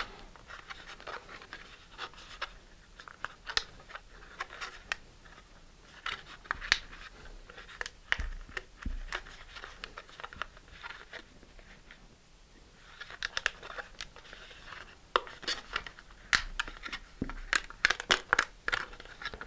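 Thin high-impact polystyrene sheet crinkling and crackling as it is bent back and forth along a scored line to snap out a vacuum-formed porthole. The crackles come in irregular clusters, pause briefly midway, and grow denser toward the end.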